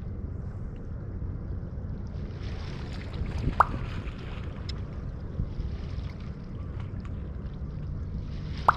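Steady wind and sea noise at the shore, with a sharp water plop about three and a half seconds in and another at the very end.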